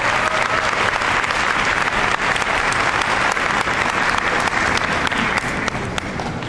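Audience applauding, a dense, steady clapping that thins out a little near the end.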